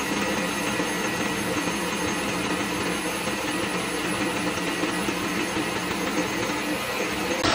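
Stand mixer running steadily, its whisk beating a whipped egg-and-sugar batter.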